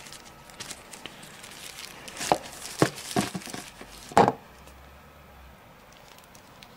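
Packaging being handled: rustling and crinkling of packing sheets and cardboard inner boxes, with a few short sharp knocks between about two and four seconds in, the loudest just after four seconds.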